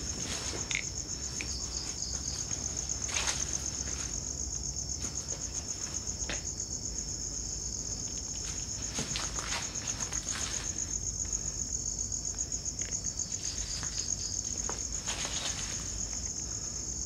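Night insects, crickets, trilling continuously in a high, rapidly pulsing chorus, with scattered soft crackles and rustles.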